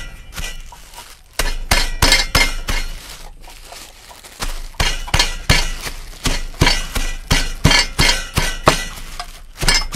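A heavy pestle pounding peanuts in a plastic bag on a wooden chopping block, crushing them. The blows come about two or three a second, with a short pause about three seconds in.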